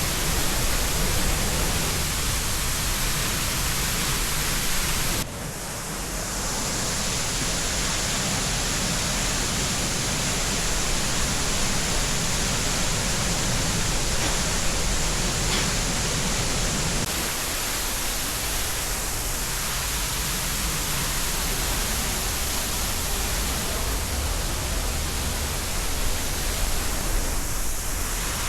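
Steady rush of a large waterfall, a dense even noise across all pitches. About five seconds in, the level dips suddenly and then climbs back.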